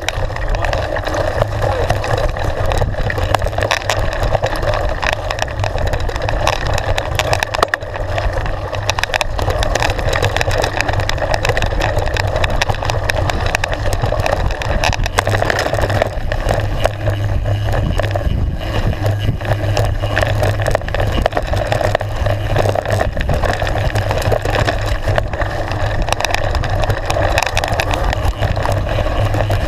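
Continuous riding noise of a mountain bike descending a gravel and dirt trail, picked up by a camera mounted on the bike: steady low rumble from the tyres rolling over loose stones and dirt, with a constant clatter of small knocks.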